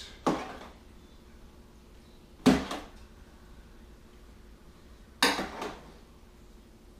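A large slotted spoon clanking against a pan while stirring a full pan of goulash. There are three clanks a couple of seconds apart, each ringing briefly, and the middle one is the loudest.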